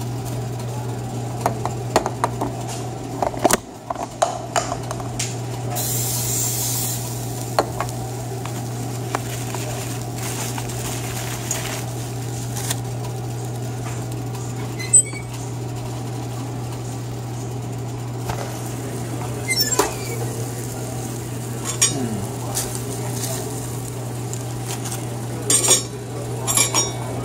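Scattered metal clinks and knocks of tongs and a stainless-steel commercial panini press being handled while making a grilled cheese sandwich, over a steady low hum.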